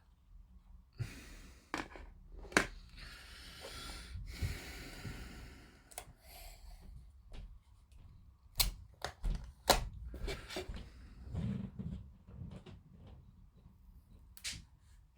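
Plastic model kit parts being handled and fitted together: a series of sharp clicks and knocks, with rustling between about three and five seconds in.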